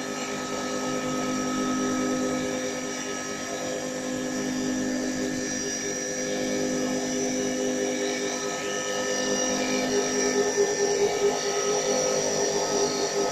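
CA-160 mini CNC wood lathe turning a wooden pen blank: the spindle motor runs with several steady whining tones while the cutter shaves the spinning wood. About ten seconds in, the sound changes and gets slightly louder and rougher as the cut moves on.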